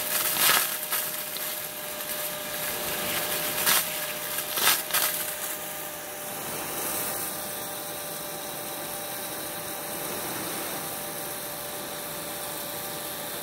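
A rain gun sprinkler's water jet hissing steadily, with a faint steady hum underneath. A few sharp knocks come in the first five seconds.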